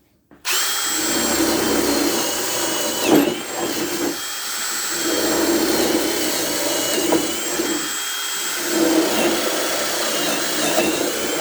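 Ryobi ONE+ HP brushless hammer drill running on speed 2, boring with a 1/2-inch drill bit: a steady motor whine that dips briefly under load, with three heavier stretches as the bit cuts three holes.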